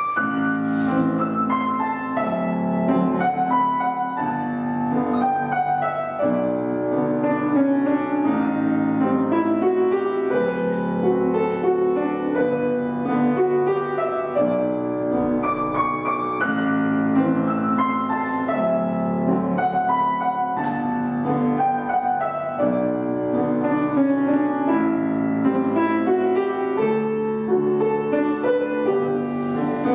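Piano playing classical-style accompaniment for ballet barre exercises, continuous and steady in level.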